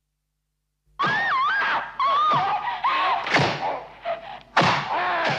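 High, wavering cries or screams broken by several heavy thuds, starting about a second in after silence: the intro to a goregrind track, with no band playing yet.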